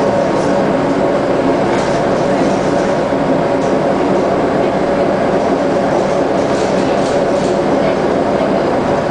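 Scania L94UB bus's DC9 diesel engine and driveline heard from inside the saloon, a steady drone as the bus cruises at constant speed, with light rattles from the interior fittings.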